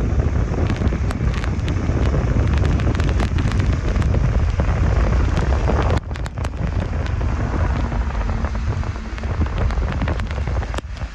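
Storm wind buffeting the microphone with a heavy low rumble, over the hiss of rain, with scattered sharp clicks. The noise cuts out briefly about six seconds in, then continues a little lower.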